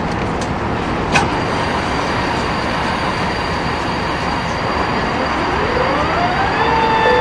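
Steady roar of an Airbus A380-800 in flight, heard inside the passenger cabin. A sharp click comes about a second in, and from about five seconds a whine rises in pitch and levels off into a steady tone.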